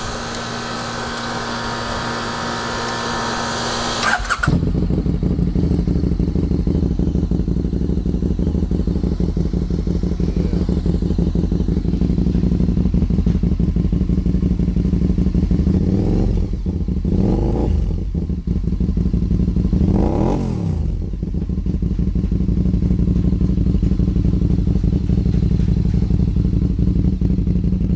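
Can-Am Spyder engine through a Two Brothers dual aftermarket exhaust: after a steady whir it starts about four seconds in, idles, is revved up and down twice past the middle, then settles back to a steady idle.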